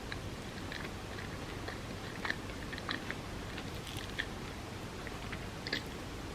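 A person chewing a bagel with cream cheese: scattered short mouth clicks over a steady background hiss.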